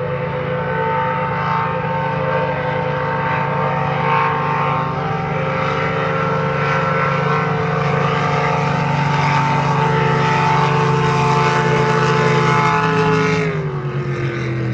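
Several racing powerboat engines running flat out together, a loud steady engine drone with the hiss of hulls on the water, swelling slightly. About thirteen seconds in, the hiss drops away and the engine note falls in pitch.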